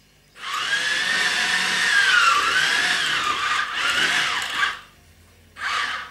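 Spykee Wi-Fi robot's electric track motors whirring as it drives forward on its treads, the whine wavering up and down in pitch. It stops about four and a half seconds in, then whirs again briefly near the end.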